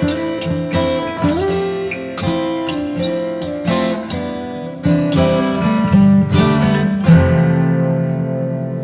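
Background music on acoustic guitar, plucked and strummed, ending on a held chord that lets ring in the last couple of seconds.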